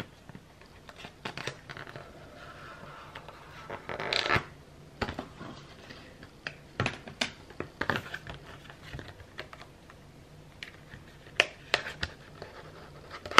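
Card and paper packaging rustling and scraping as an Apple Watch sport band is pulled out of its folded card tray, with scattered clicks and taps and a louder rustle about four seconds in.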